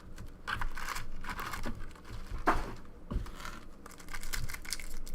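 Crinkling and tearing of a foil trading-card pack wrapper being ripped open, in irregular crackles with a sharp snap about halfway through.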